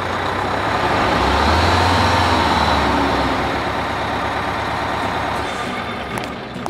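Sound effect of a motor vehicle engine running and driving off. The low rumble swells about a second in and fades near the end.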